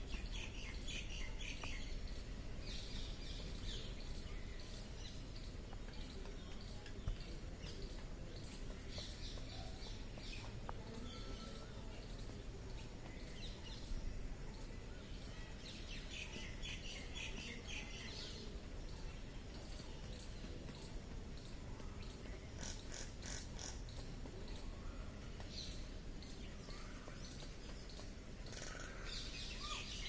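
Small birds chirping in short bunches every few seconds, over a steady, fast, high-pitched ticking that runs throughout.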